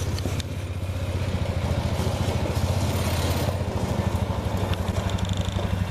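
An engine running steadily nearby, a low pulsing drone loud enough to interrupt the talking.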